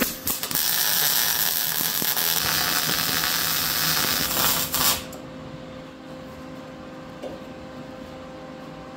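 Lincoln Electric Weld-Pak 175 HD MIG welder arc crackling steadily as a bead is laid on steel, running about five seconds and then cutting off when the trigger is released. A steady hum remains afterwards.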